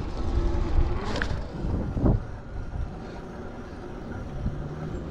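Wind and road rumble from riding a 2000 W rear-hub-motor e-bike, with a brief swish about a second in and a low steady hum from about four seconds in.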